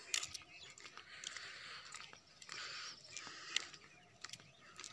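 Faint crunching footsteps on gritty brick paving, with scattered clicks.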